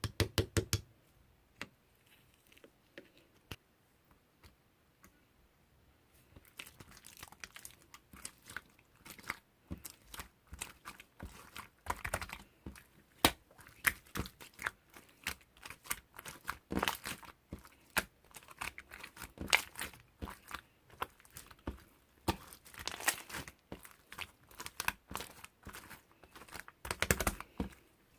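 Close-up handling of crinkly material: rustling, crumpling and tearing sounds. Sparse light taps for about the first six seconds, then a dense run of crisp crinkles.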